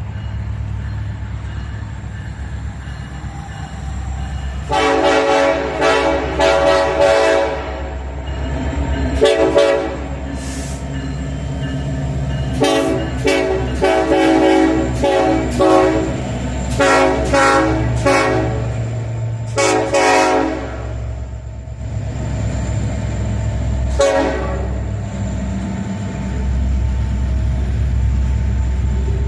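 Air horn of an EMD SD70ACe diesel locomotive leading a slow freight train, played as a horn show: a long blast about five seconds in, then bursts of quick on-off toots and longer blasts through to about 21 seconds, and one last short blast near 24 seconds. A steady low rumble of the locomotives' diesel engines runs underneath.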